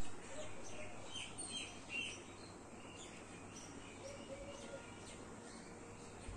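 Chestnut-tailed starlings giving short high chirps, a quick run of them in the first two seconds and a few fainter ones after.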